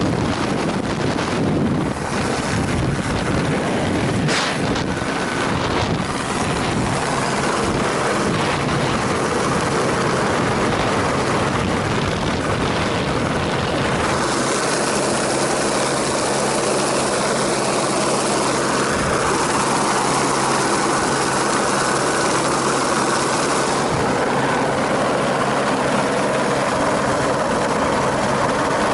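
A steady engine running under a loud, even rushing noise, with a low hum settling in about halfway through.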